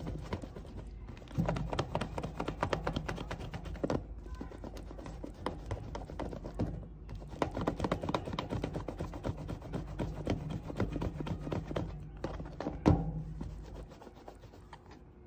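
Hands rolling a coil of fresh clay back and forth on a textured tabletop mat: a rapid, uneven patter of palms and clay rubbing and tapping on the surface, with one sharper knock near the end.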